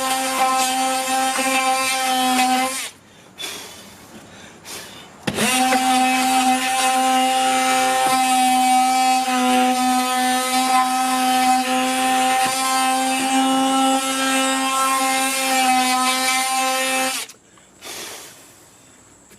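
Battery-powered Ryobi oscillating multi-tool with a sanding pad running on painted wood: a steady buzzing hum with a rasp of sanding over it, sanding off old paint. It stops about three seconds in, starts again a couple of seconds later, and runs until near the end.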